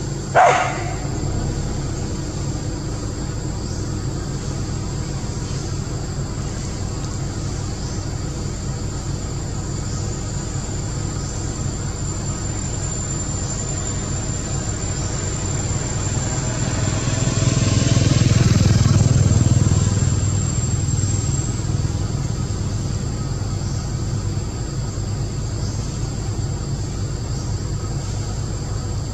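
A motor vehicle passes, growing louder and then fading away over about five seconds two-thirds of the way through, over a steady background with a thin high whine. A single short dog bark right at the start.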